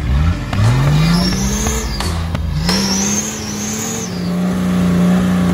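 Off-road SUV's engine revving hard as it drives into a deep mud bog. The revs climb twice in quick succession, then hold steady and high from about four seconds in, as the wheels churn through the mud.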